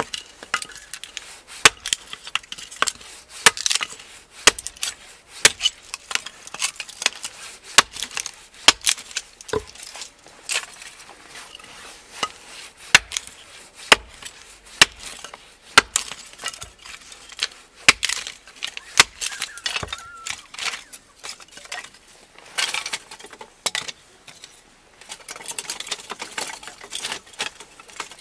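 Hatchet splitting kindling on a wooden chopping block: a run of sharp wooden knocks as the blade and stick strike the stump, at an uneven pace of about one a second, with quicker, lighter knocks near the end.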